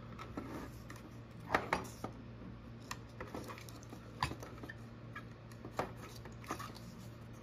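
Light clicks and knocks of a film roll and its spool being pressed and seated into the film chamber of a Kodak Duaflex II camera, a handful of separate small taps spread over several seconds.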